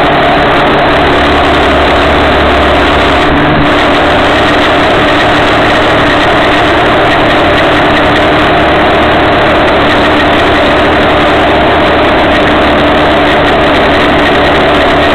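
Cagiva Elefant 600 motorcycle engine running steadily while riding, heard through loud, even wind and road noise on the bike-mounted microphone.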